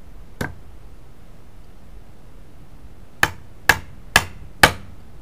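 Claw hammer driving a nail into a wooden board: one light tap, then, a few seconds later, four sharp strikes about two a second.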